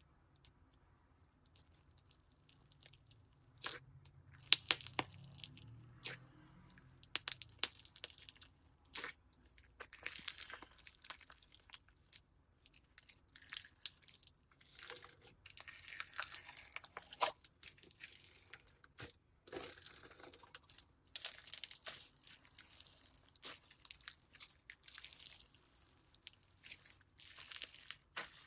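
Slime being squeezed and pulled by hand, making irregular crisp crackles, pops and crunching clicks that start about three seconds in and come in clusters.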